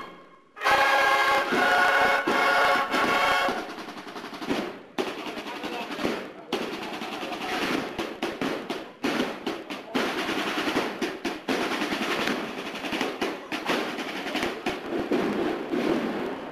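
A cornet-and-drum band: the cornets hold a last chord that cuts off about three and a half seconds in, and the snare drums then play on alone with rolls.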